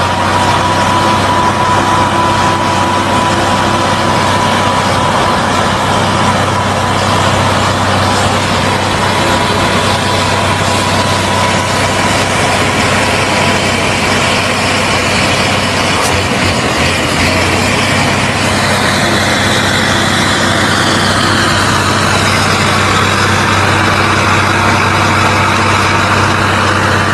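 FNM (Alfa Romeo) truck's diesel engine running steadily under way, with a strong low hum. About two-thirds of the way through, a whine comes in and slowly falls in pitch.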